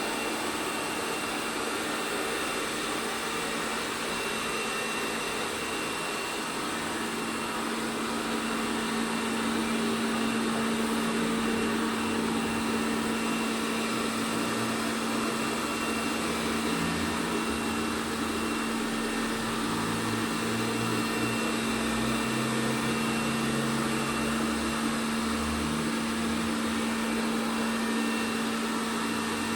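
ELARI SmartBot Lite SBT-002A robot vacuum running steadily: an even suction-motor noise with a constant hum and a thin high whine, and an uneven low rumble in the second half.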